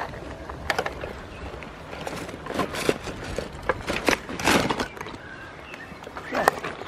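Goats moving about: irregular knocks and scuffs of hooves, with a louder cluster of scuffling about four to five seconds in.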